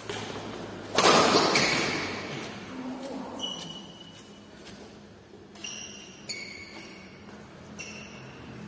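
Badminton doubles play on a hard tiled floor: shoes squeak briefly several times as players move. About a second in there is a loud sudden noise that fades over a second or so.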